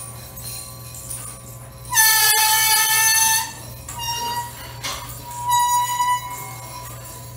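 Live experimental music: a loud held pitched tone with many overtones comes in about two seconds in and lasts about a second and a half, followed by two shorter held tones, over a steady low hum.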